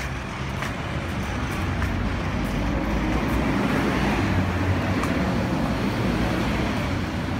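Remote-controlled toy jeep running across a concrete floor, its motor and wheels making a steady rumble and hiss mixed with road traffic noise. The sound swells a little in the middle.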